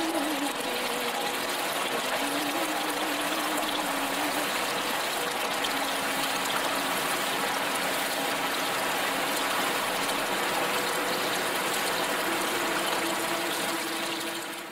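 Waterfall pouring steadily into a pool, a continuous rushing splash of falling water that fades away at the very end.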